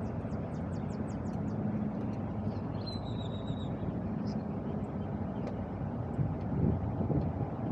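Steady low mechanical rumble, with a few light clicks in the first second and a short high whistle about three seconds in.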